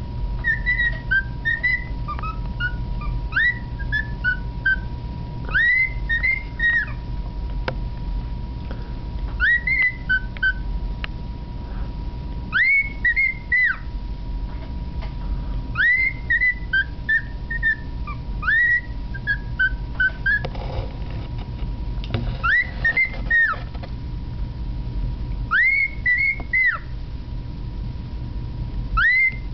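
Cockatiel whistling a learned tune in short phrases of clear, swooping notes, one phrase every two to three seconds.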